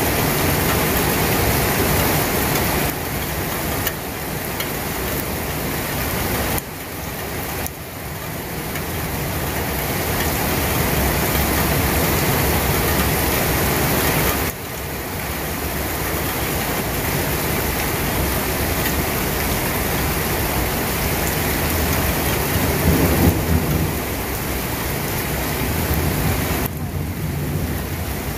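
Heavy rain falling steadily against a window and the roofs beyond, a dense hiss with no pattern to it. Its loudness drops abruptly several times, and a brief low rumble swells up about three-quarters of the way through.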